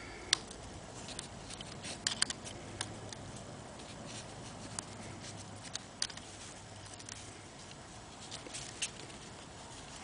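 Faint, irregular clicks and taps of a 7 mm wrench on the small clamp nut of a carburettor choke arm, as the nut is snugged down to hold the new choke cable.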